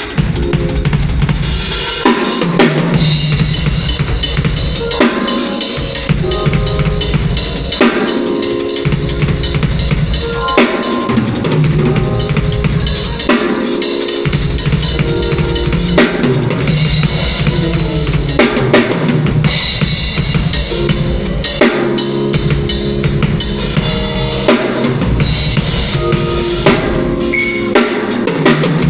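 A live band playing through a sound check: a drum kit with kick, snare and rimshots stands out, over a bass line and other pitched instruments holding chords, continuous and loud.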